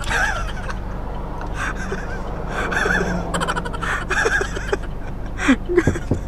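Muffled, indistinct voices over a steady low hum, with a few sharp knocks near the end.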